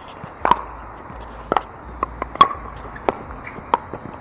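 Pickleball paddles hitting the hard plastic ball in a rally: sharp, hollow pops about once a second, some loud and near, some fainter.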